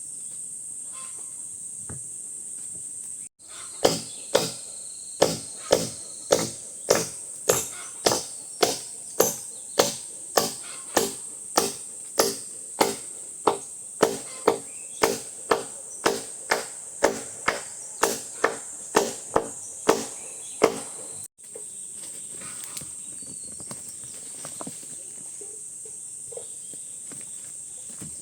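A tool striking in a steady rhythm, about two blows a second, some thirty in all, over a steady high chirring of insects. The blows stop near the end and the insects carry on alone.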